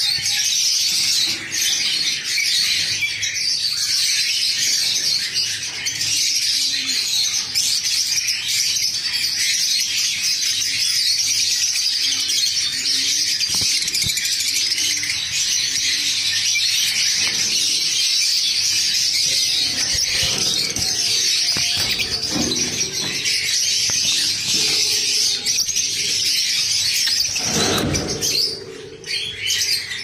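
Small caged parrots chirping and twittering in a dense, unbroken high-pitched chatter. Near the end there is a short flurry of wing flapping as one bird leaves the perch.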